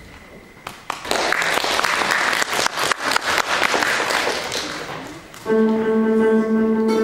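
Audience applauding for about four seconds, fading out. About five seconds in, a balalaika starts playing a tune.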